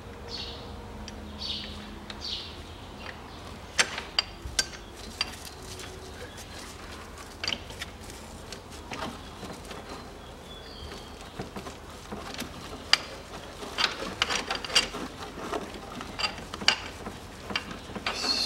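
Scattered sharp metallic clicks and knocks of hand tools and steel parts being handled in an engine bay, with a quicker run of clicks in the last few seconds.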